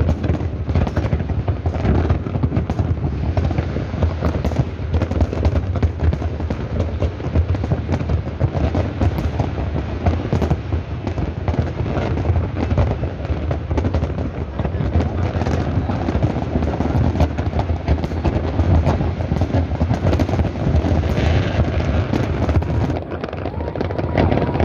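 Large aerial fireworks display: a dense, continuous barrage of shells bursting and crackling, many overlapping bangs with a deep low boom under them.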